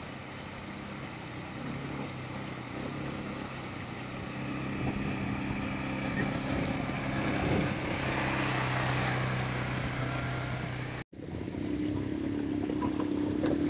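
ATV (quad bike) engine running as it drives through a shallow rocky river, over the rush and splash of the water; the engine hum grows louder as the quad comes close, peaking about eight seconds in. The sound cuts off for an instant near the end and another steady engine-like hum follows.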